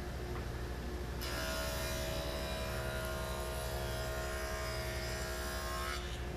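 Table saw with a dado blade running, cutting a dado along a board from about a second in until near the end: a steady whine and hiss over the saw's hum, which cuts off when the board clears the blade.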